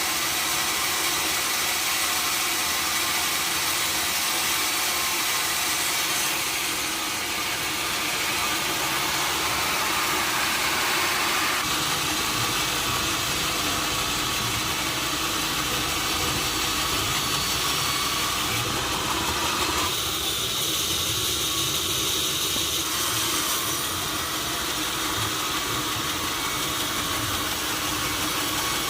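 Sawmill machinery running steadily: a motor's drone under a hissing noise, shifting in tone a few times along the way.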